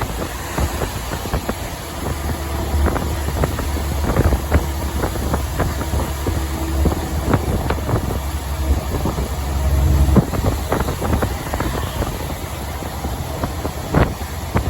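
Truck driving on the highway: a steady low drone of engine and road noise, with frequent small rattles and knocks and a sharper knock near the end.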